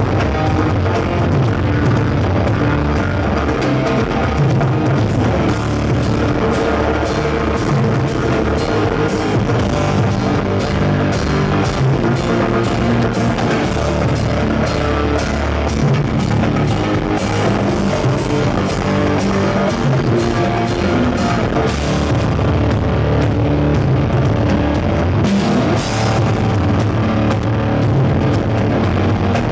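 Rock drum kit played live at full volume as part of a drum duo: fast, steady hits on kick, toms and snare with cymbals, and brighter cymbal washes about three-quarters of the way through and again near the end.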